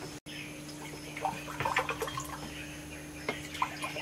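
Liquid poured from a plastic pitcher into a small cup, with light taps and knocks as the pitcher and cups are handled.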